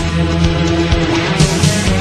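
Gothic rock music with electric guitar and a steady beat.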